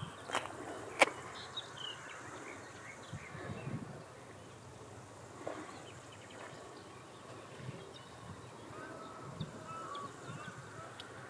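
Faint bird chirps over a steady background hiss, with two sharp clicks about half a second apart near the start, the second one the loudest.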